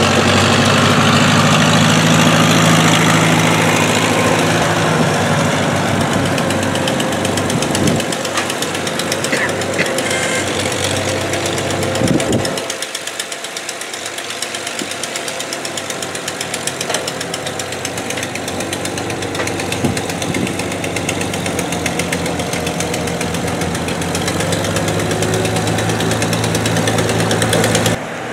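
Farmall tractor engine running slowly with a fast, even beat as the tractor backs down off a trailer. The deep low rumble drops away about halfway through, then returns.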